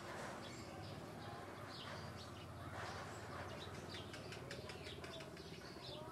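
Faint outdoor ambience with small birds chirping and calling now and then over a steady low background hum.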